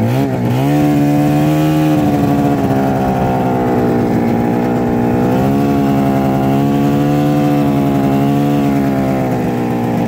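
Snowmobile engine running while riding, a steady drone whose pitch wavers and rises with the throttle, most clearly in the first second and again about halfway through.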